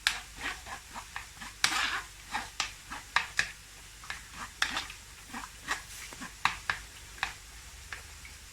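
Kitchen utensils knocking and clinking: an irregular string of sharp clicks and taps, with a brief scrape about two seconds in.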